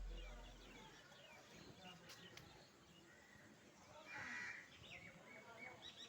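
Faint outdoor birdsong: many small chirps, with one short, harsher call about four seconds in and a run of quick chirps near the end. A low hum fades out in the first second.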